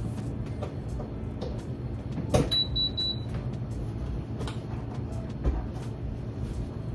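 Knocks and clunks of an espresso-style coffee maker being set down and handled on a countertop, with three short high beeps from the machine about two and a half seconds in, over the steady drone of lawn mowers running outside.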